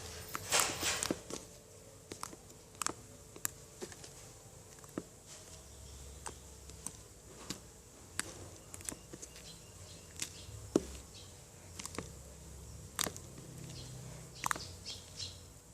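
Finished slime being squeezed and poked by hand: scattered small sticky clicks and pops, with a denser crackle about half a second in.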